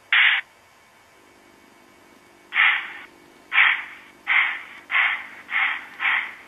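Sound decoder of an N-scale Walthers Y3 2-8-8-2 steam locomotive playing through its tiny speaker: one short exhaust chuff just after the start, then after a pause chuffs begin again and come steadily closer together as the locomotive gets under way.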